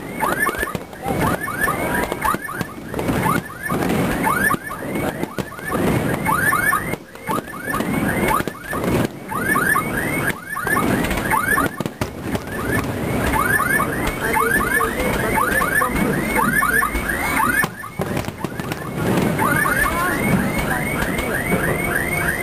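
Aerial fireworks display: shells bursting in quick succession, with dense runs of shrill, rapidly repeating pitch sweeps over the bangs.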